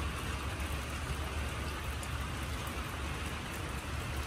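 Steady rain falling: an even hiss with scattered faint drop ticks, over a steady low rumble.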